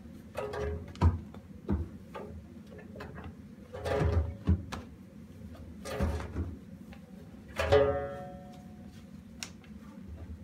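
Wet laundry being pulled by hand out of a commercial washing machine's stainless-steel drum: irregular knocks and rustles as the load and hands bump the drum. One knock, about three quarters of the way through, rings on with a metallic tone.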